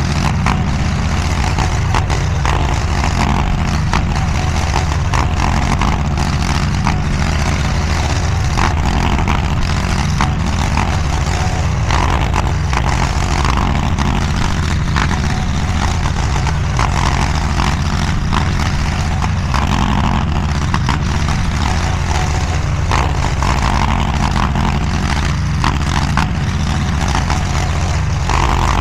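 DIGGIT SCL850 stand-behind mini skid steer's engine running steadily at working speed, with higher-pitched swells coming and going every second or two as the machine works the dirt.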